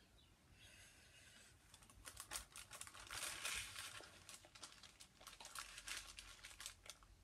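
Faint crinkling and crackling of plastic sheeting handled by a gloved hand, a dense run of small rustles and clicks that picks up about two seconds in.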